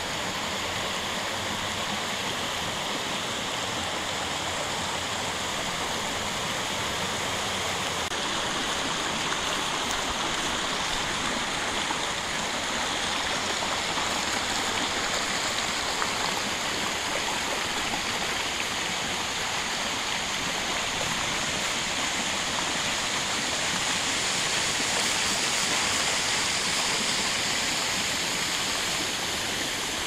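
Rushing water of a rocky creek running in rapids and small falls, a steady even rush that grows a little louder in the latter part.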